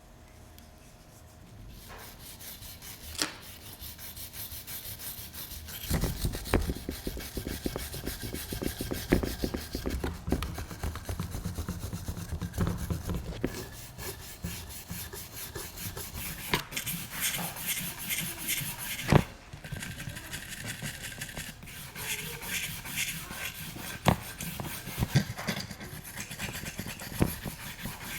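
Rapid back-and-forth rubbing strokes of an abrasive on metal, as rust is scrubbed off a pistol part by hand, starting about two seconds in, with a few sharp knocks.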